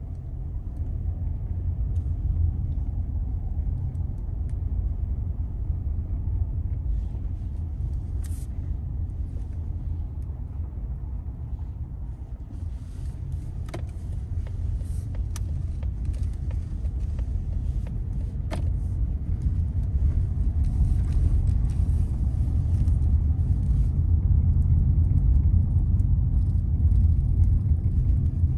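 Car driving on a brick-paved street, heard from inside the cabin: a steady low rumble of tyres and engine, with a few faint clicks. The rumble grows louder over the last several seconds.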